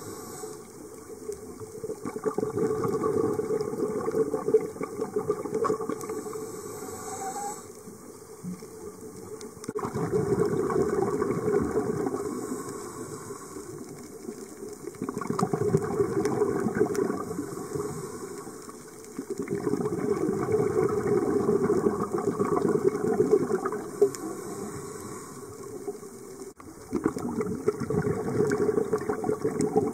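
Underwater scuba breathing: bursts of exhaled bubbles from a diver's regulator gushing and crackling in surges a few seconds long, about every five to six seconds, with quieter inhalation gaps between them.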